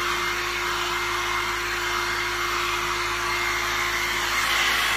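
Small handheld hair dryer blowing steadily: an even rushing of air with a steady motor hum underneath.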